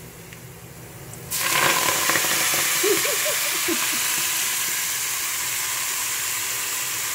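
Fresh fenugreek leaves dropped into hot oil, setting off a sudden loud sizzle about a second in that carries on steadily.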